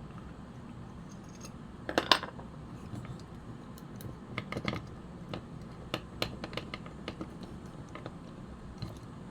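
Small hard clicks and taps of metal parts and tools being handled while a Yashica Super-60 Electronic Super 8 camera's die-cast grip is dismantled: a loud cluster of clicks about two seconds in, then a scatter of lighter, irregular clicks.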